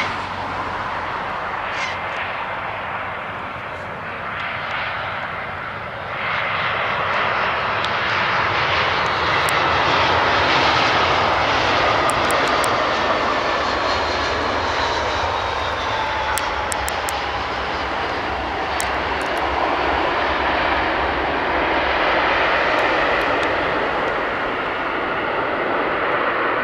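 Aircraft engines running loud and steady as a plane passes, swelling about six seconds in, with a whine that slowly falls in pitch.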